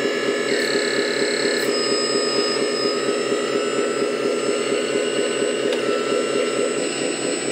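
Hydraulic pump of a LESU 8x8 RC hook-lift truck running steadily as the hook arm tips the container up: a mechanical whine over a fast low pulsing, its pitch stepping a few times.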